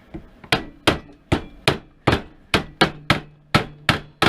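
Steady, repeated hammering: about ten sharp blows at roughly two and a half a second, starting about half a second in, with a faint ring lingering between strikes.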